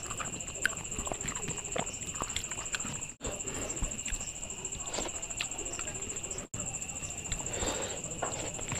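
Fingers mashing and mixing rice on a banana leaf, with many small wet clicks and taps, then a mouthful taken and chewed near the end. A steady high-pitched hum sounds behind it.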